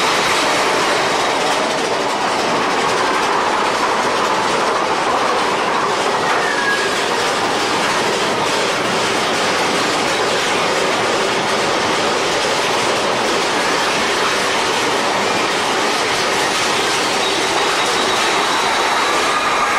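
Big Thunder Mountain Railroad mine-train roller coaster running along its track, heard from aboard: a loud, steady rumble and clatter of the wheels, with a few faint wheel squeals.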